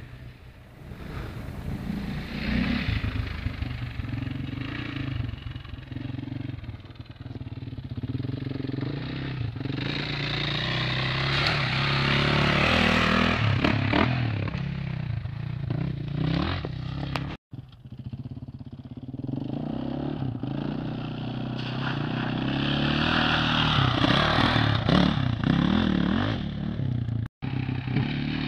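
KTM 525 EXC dirt bike's single-cylinder four-stroke engine being ridden off-road, its pitch rising and falling as the throttle is worked. It starts faint and grows louder as the bike comes nearer, with two brief dropouts in the sound.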